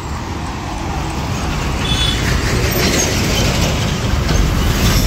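Road traffic, motorbike and truck engines among it, growing louder as the vehicles approach.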